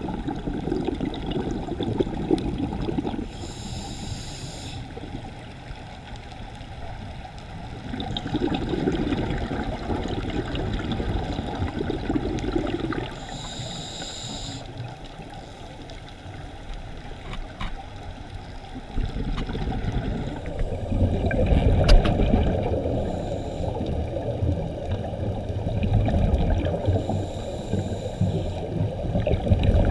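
Scuba regulator breathing heard underwater: short hissing inhalations about every ten seconds between long bubbling exhalations. A deep low rumble builds in the last third.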